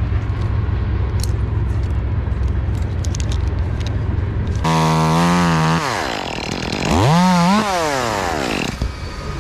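Two-stroke chainsaw running with a low steady rumble, then revved twice. The first rev is held high for about a second and falls away; the second rises and drops again about seven to eight seconds in.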